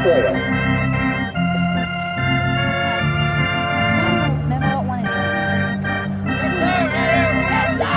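Organ music, a Hammond-style electric organ playing sustained chords over a stepping bass line. Near the end, a few voices rise over it.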